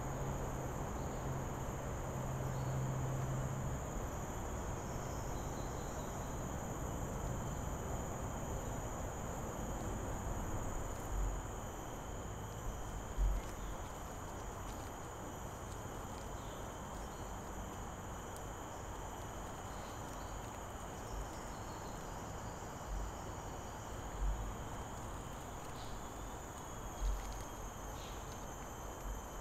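Steady chorus of tropical insects such as crickets and cicadas, a continuous high-pitched drone at several pitches. A low hum runs during the first few seconds, and a few short low thumps come in the second half.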